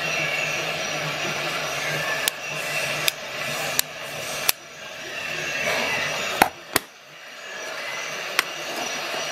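Sharp, irregular clicks and taps from a digital caliper being handled, its jaw slid and the tool set down, seven in all, two close together near the middle the loudest. A steady rushing noise runs underneath.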